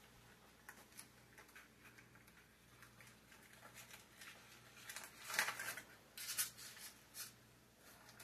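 Faint kitchen handling: light rustling, scraping and small clicks, with a few louder scrapes about five to six and a half seconds in.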